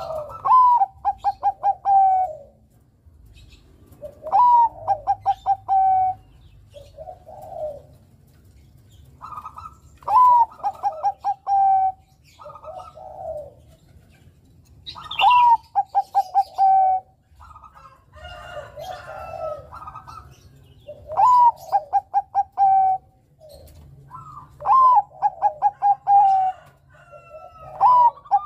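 Bangkok-strain zebra dove (perkutut) singing its repeated coo, about seven loud phrases, each a rising note, a quick run of short clipped notes and a held trilling note, with softer coos between phrases.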